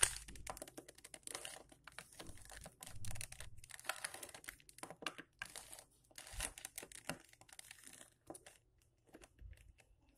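Mirror cube's plastic layers being turned quickly by hand: runs of rapid clicks and scraping rattles in short bursts as the move sequence is repeated.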